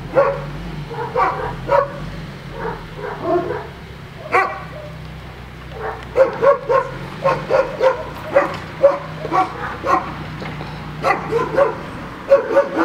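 A dog barking and yipping in short, quick runs of calls, more often from about halfway through.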